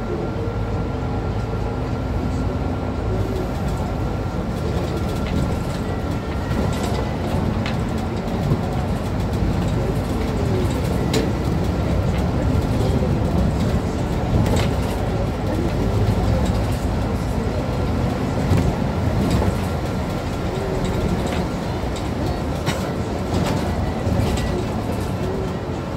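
Mercedes-Benz Citaro C2 city bus under way, heard from inside the cabin: a steady engine and road rumble with a shifting drivetrain hum, a thin steady whine, and scattered knocks and rattles.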